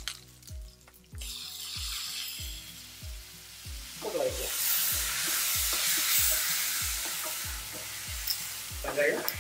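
Chopped tomatoes dropped into hot oil and frying onions in a stainless-steel pressure cooker, sizzling from about a second in and getting louder from about four seconds as they are stirred in with a wooden spoon. A soft, steady beat of background music runs underneath.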